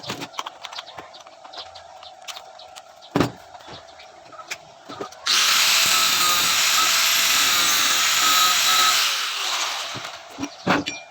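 A power tool runs for about four seconds, starting abruptly about halfway through and then winding down. Before it come several light knocks and taps of hand work.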